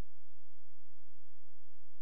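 Steady low electrical hum with faint hiss and a thin high whine, and no sound from the field.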